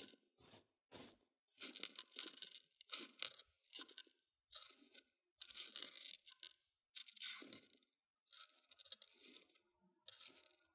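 Dried mung beans rattling and crunching inside the silicone ear of a binaural microphone as they are stirred with a stick, in many short, irregular bursts with brief gaps between.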